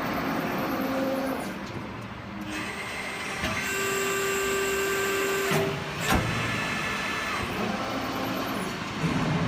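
CNC hydraulic press brake running, its servo motor drives giving a steady whine with several held tones that start and stop. There are two or three sharp clicks in the middle.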